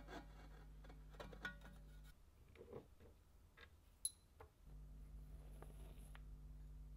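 Faint clicks and small rattles of an antique rotary grater's metal parts being fitted together by hand, with one sharp metallic tink about four seconds in as a small metal part is set down on a wooden table, over a low steady hum.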